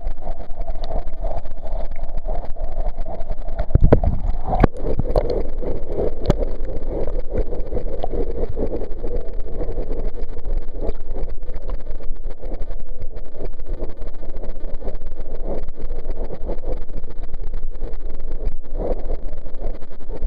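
Pool water splashing and churning right at a camera riding at the surface on a swimmer's kickboard, stirred by the swimmer's fin kicks, as a steady wash. A couple of sharp knocks come about four to five seconds in.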